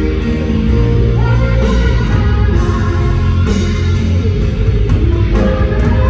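Rock band playing a song through a stadium PA system: electric guitar, bass and drums, heard from far across an open stadium.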